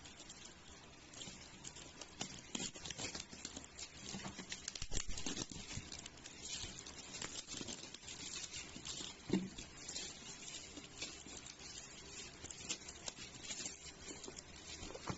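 Handling noise: irregular small clicks, taps and rustles, like objects or packaging being handled close to the microphone.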